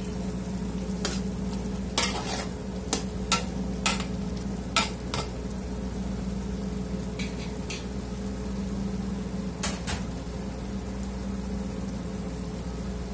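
Metal spatula stirring beef cubes in a large aluminium stockpot, clinking against the pot about ten times in the first five seconds and twice more near ten seconds, while the meat cooks in its juices with a steady hiss. A steady low hum runs underneath.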